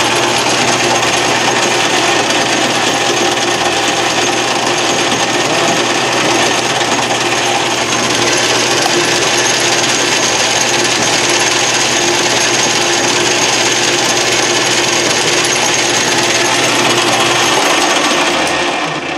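Craftsman Atlas 12-inch lathe running with its change-gear train engaged: the straight-cut spur gears make a loud, steady mechanical noise, the gear noise the owner calls super noisy. It fades out as the lathe stops near the end.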